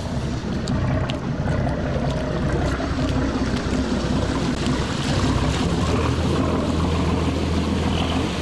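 Motorboat engine running with a steady low hum, growing stronger about five seconds in as the boat gets under way, with a few light knocks near the start.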